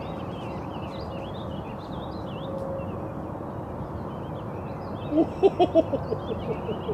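Small songbirds chirping over a steady outdoor background hum. About five seconds in comes a quick run of about eight loud, pitched calls that fade away, most likely a bird calling.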